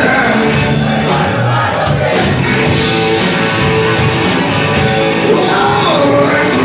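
Rock music with electric guitar and a singing voice.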